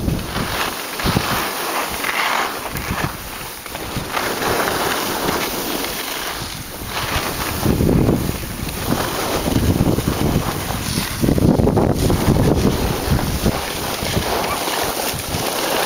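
Wind rushing over the microphone of a moving skier, mixed with skis hissing and scraping over packed snow, swelling and easing in uneven surges.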